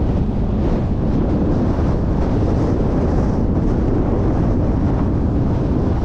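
Wind buffeting the microphone in a loud, steady low rumble, with harvest machinery running underneath.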